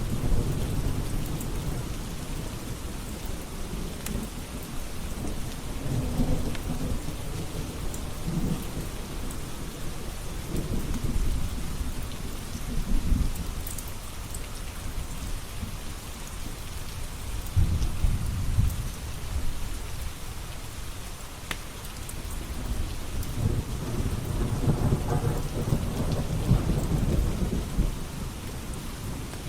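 Steady heavy rain with rolling thunder that swells and fades several times, deep and low. A wood fire crackles now and then with a few sharp snaps.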